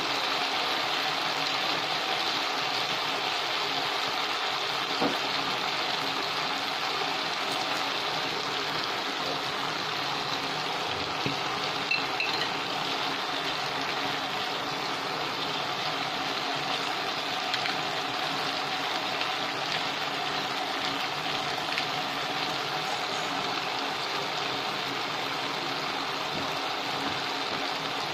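Mixed vegetables sizzling and simmering in a pot on the stove: a steady hiss, with a few light clicks.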